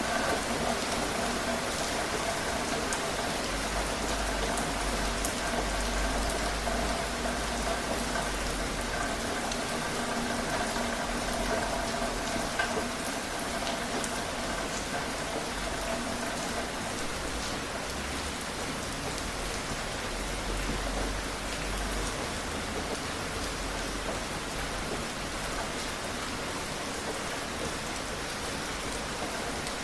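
Steady rain falling, an even hiss with scattered individual drop ticks. A faint steady hum of several tones runs under it and fades out a little past halfway.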